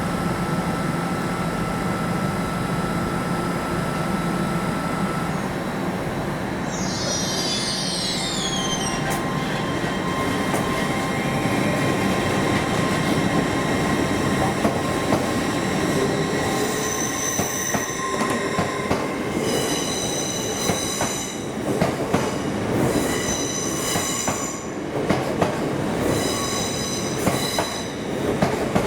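A train moving slowly through the station, its wheels squealing against the curved track. There is a short falling squeal about seven seconds in, and from about halfway on, high squeals keep breaking out again and again over a steady rumble, with some clicking of wheels over rail joints.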